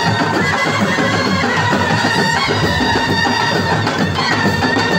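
Music: a loud, dense track with a beating low end and long held high notes.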